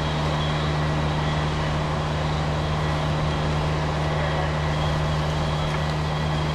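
A steady engine drone: a constant low hum under an even rushing noise, with no change in pace.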